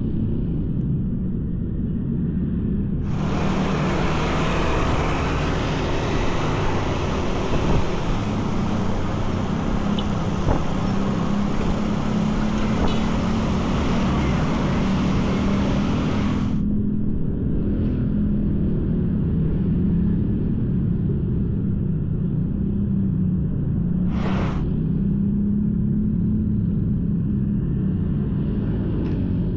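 Steady low rumble of road traffic. A brighter hiss comes in about three seconds in and cuts off suddenly about halfway through.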